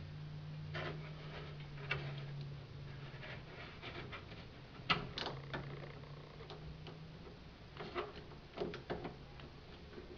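Scattered clicks and light knocks of plastic and metal parts being handled and fitted together by hand while assembling a Schwinn 430 elliptical trainer. The loudest is a quick pair of sharp clicks about five seconds in, with a small cluster more near the end.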